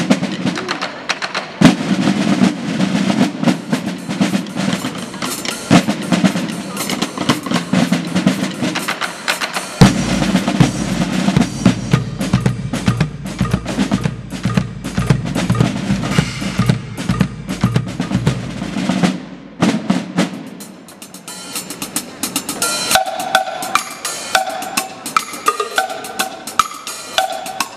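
Drum ensemble playing fast snare-drum rolls and strokes, with bass drum coming in about ten seconds in. The playing thins out about twenty seconds in, then goes on as a lighter, repeated pitched pattern.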